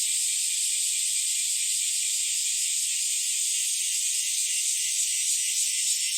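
Chorus of cicadas, bear cicadas (kumazemi) and Kaempfer cicadas (niiniizemi), buzzing in a dense, continuous high-pitched drone.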